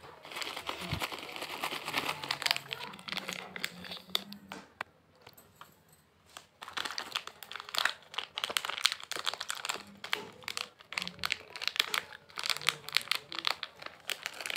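Crinkling of a small plastic Cadbury Gems wrapper handled and squeezed in the fingers, a dense crackle of small clicks. It comes in two spells with a short lull in the middle.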